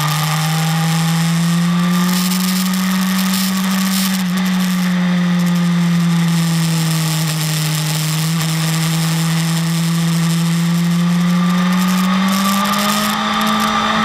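BMW S1000RR's inline-four engine running at steady, moderate revs, its pitch climbing at the start and again near the end, with a rushing hiss of wind over it.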